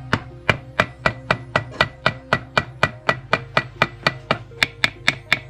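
Rapid, evenly spaced light hammer taps on a pit bike engine's aluminium crankcase, about four a second, working the case halves apart while sparing the gasket between them.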